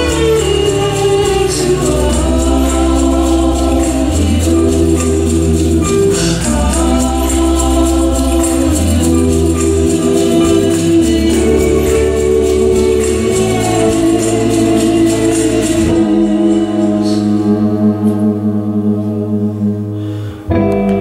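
Music with voices singing over a steady high percussion beat. About three quarters of the way through the percussion drops out and sustained low tones carry on, with a brief break just before the end.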